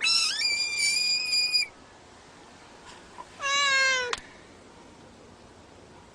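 A frog's shrill distress screams: two long cries, the first high and steady for about a second and a half, the second about two seconds later, lower and falling slightly.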